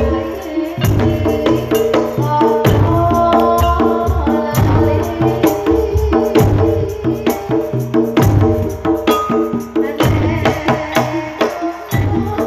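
Live Javanese gamelan music: a kendang barrel drum played by hand drives a quick rhythm over a steady repeating pattern of ringing metallophone notes, with deep drum strokes recurring about once a second.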